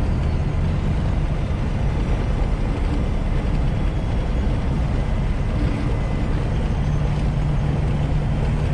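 Semi-truck's diesel engine running steadily at highway cruise with tyre and wind noise, heard inside the cab.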